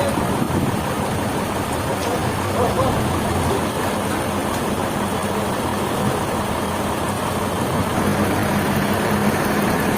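Engine running steadily at an even speed, a constant low hum under a dense mechanical noise, growing slightly stronger near the end.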